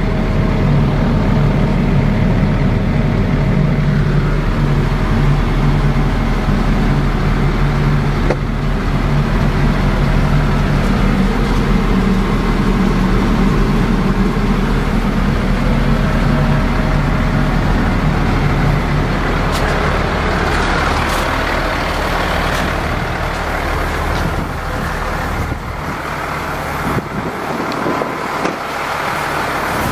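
Caterpillar 3126E inline-six diesel engine of a Ford F750 idling steadily. Around two-thirds of the way in the low hum thins out and scattered clicks and knocks come in.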